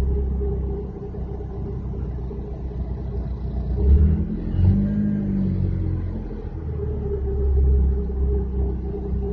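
Subaru Vivio's small four-cylinder engine running with an abnormal noise from the timing belt slipping on the water pump it drives with its back side, so the pump is not being turned properly. A steady low hum, with a stronger pitched sound that rises and falls back around the middle.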